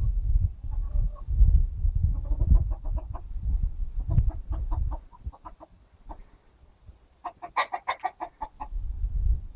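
Chickens clucking in quick runs of short notes, the loudest and fastest run near the end, over a low rumble.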